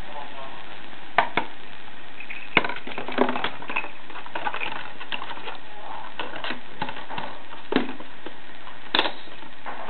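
Golf ball knocked about by a kitten on an indoor putting mat: a handful of sharp clicks and knocks with scratchy rustling between them. The loudest knocks come about two and a half seconds in and near the end.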